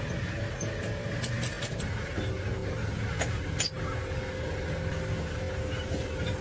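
An engine running steadily, with a few light clicks over it.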